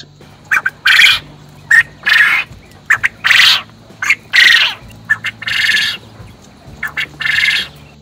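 Male Japanese quail crowing about six times, each crow a short harsh note followed by a longer one. Only males make this call; females do not crow, so the call marks the bird as a male.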